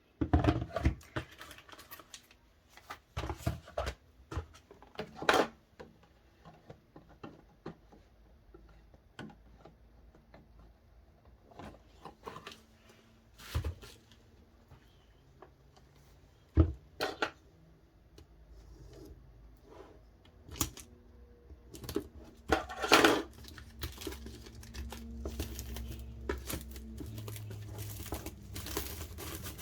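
Scattered clicks, taps and rustles of a DVD box set's plastic packaging and cards being handled, with a longer, louder crinkle about two-thirds of the way through.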